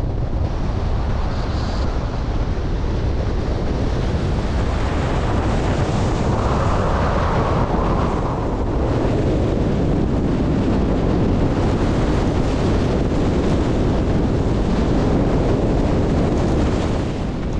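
Storm-force mountain wind blasting across the camera microphone: a loud, continuous rushing and buffeting roar, swelling slightly about seven seconds in.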